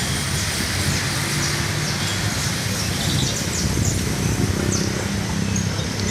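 Canary chirping, many short high downward-gliding chirps scattered throughout. A loud steady noise and a low hum run underneath.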